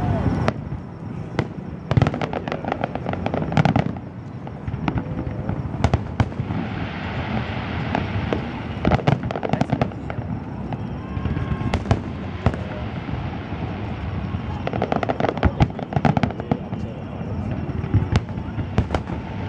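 Fireworks display going off: a continuous run of bangs from the shells, with dense bursts of rapid crackling every few seconds.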